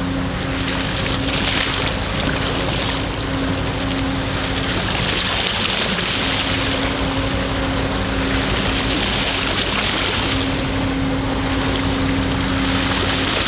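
A boat engine running at a steady hum, under the rush of water and wind that rises and falls every few seconds.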